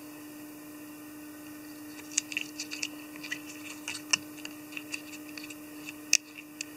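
Irregular light ticks and clicks from holographic tinsel and a thread spool being handled while the tinsel is wound along a tube fly in the vise. They begin about two seconds in and come in quick, uneven clusters. A steady low hum runs underneath.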